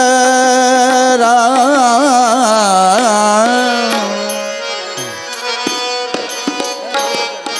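A male singer holds one long sung note of a Marathi devotional bhajan, with wavering pitch ornaments, over harmonium and tabla. About two-thirds of the way through the voice falls away, leaving a steady harmonium note and tabla strokes.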